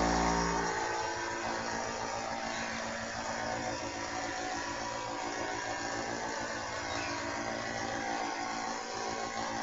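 Coopari high-pressure PCP air compressor starting abruptly and then running with a steady hum while it fills a non-regulated PCP air rifle toward 2,000 PSI.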